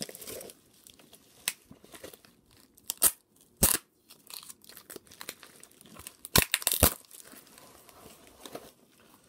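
A mailed package being opened: soft crinkling and rustling of the packaging, broken by a few short, sharp rips, one about three seconds in, another shortly after, and two close together near seven seconds.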